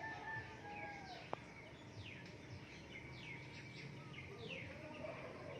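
Birds calling outdoors: a series of quick, high, falling chirps over a faint steady background, with a single sharp click about a second in.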